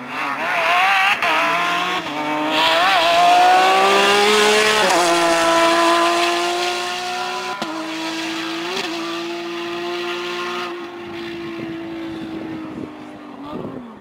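Porsche 997 GT3 rally car's flat-six engine accelerating hard, the revs climbing and dropping back at several gear changes, loudest a few seconds in. It then holds steady revs and fades as the car pulls away near the end.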